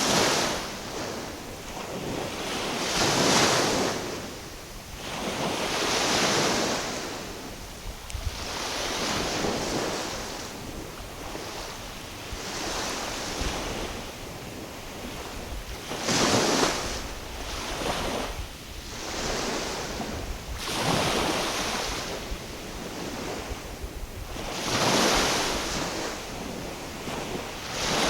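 Small waves washing in, swelling and falling away every three seconds or so, with wind rumbling on the microphone.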